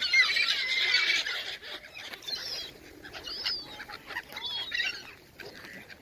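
A flock of gulls calling, many high calls overlapping at first, then thinning to a few scattered single calls after about two seconds.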